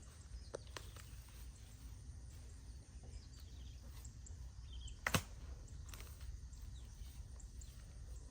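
Outdoor forest ambience: a steady low rumble with faint bird chirps, broken by a few sharp knocks or cracks, the loudest about five seconds in.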